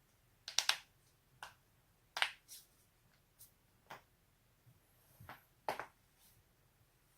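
Joints cracking: a run of about eight sharp pops at uneven intervals. The loudest are a quick double crack under a second in, one a little after two seconds and one near six seconds.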